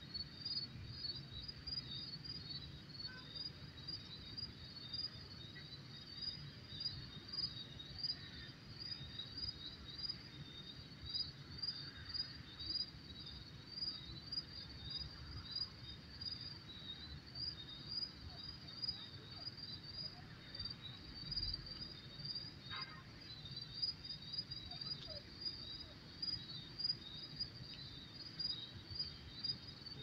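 Crickets chirping at night in a steady, even rhythm of short high chirps, over a low background rumble.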